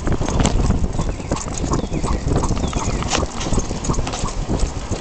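Quick, irregular clicking footfalls of a Labrador running on pavement, claws tapping the road, over a steady low rumble of wind and road noise.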